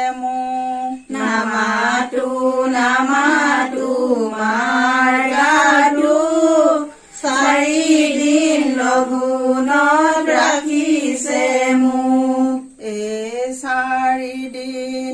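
A female voice singing a slow Assamese song, with long held notes that waver in pitch and short breaths between phrases.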